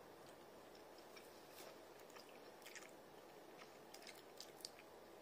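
Faint chewing of a soft king prawn dumpling, with scattered small wet mouth clicks.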